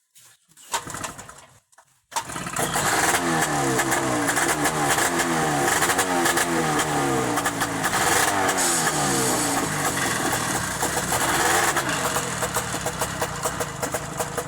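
Buran snowmobile engine running under way, its pitch rising again and again as it revs. It starts abruptly about two seconds in and eases off near the end.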